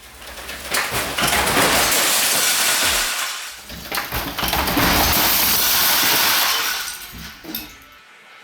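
Masses of plastic LEGO bricks crashing down and clattering as a large LEGO build collapses. It comes in two loud waves, about a second in and about four seconds in, then tails off near the end.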